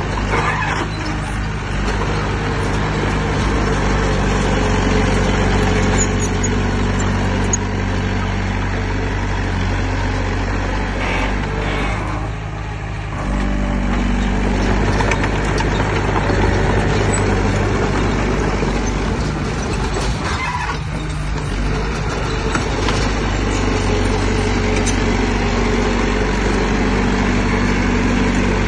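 Heavy diesel earthmoving machinery running steadily under load, its engine note dipping and shifting a couple of times.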